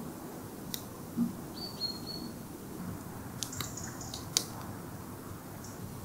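Woodland ambience: a steady hiss with a small bird's short high whistled notes, one held about half a second near two seconds in and a few quicker ones around four seconds, among a few sharp ticks.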